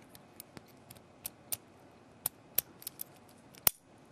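Key being pushed into a heavy-duty Miracle padlock, with a series of irregular small metallic clicks as the pins ride over the key's cuts, which are on both sides. The loudest, sharpest click comes near the end.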